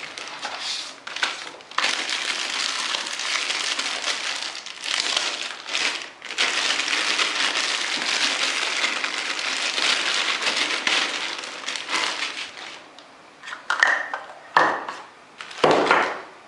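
Plastic wrapping crinkling and rustling steadily as a rifle scope is pulled out of it and unwrapped by hand, then a few short sharper rustles near the end as the bare scope is handled.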